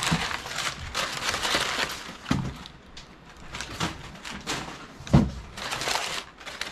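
Crumpled brown kraft packing paper rustling and crinkling in irregular bursts as it is pulled out of a cardboard box by hand, with a single thump about five seconds in.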